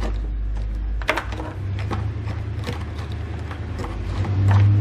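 Plastic clicks and rustles of a wiring harness being pushed and handled in a car's taillight opening, over a steady low hum that drops to a higher, louder hum about a second in and swells near the end.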